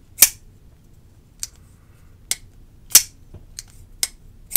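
WE Knife High Fin folding knife being flipped open and snapped shut in the hand, a series of about seven sharp metallic clicks as the blade swings and locks. Two snaps, about a quarter second in and about three seconds in, are louder than the rest.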